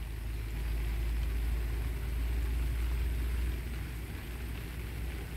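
A low, steady rumble with no distinct tones, as of wind on the microphone.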